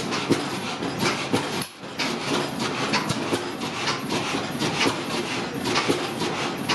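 Several antique stationary gas and oil engines running together, a dense, irregular clatter of exhaust pops and mechanical knocks over a steady machine noise.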